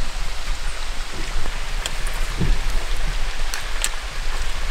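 Steady hiss of outdoor noise over a low rumble, with a few faint ticks about two seconds in and again near the end.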